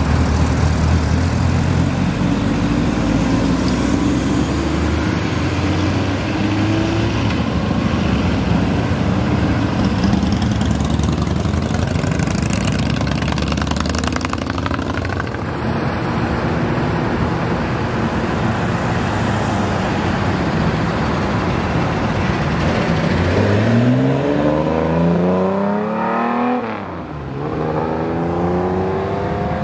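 Sports car engines accelerating past one after another. Near the end one car revs up hard through a rising engine note, its pitch drops sharply as it passes, and it revs up again.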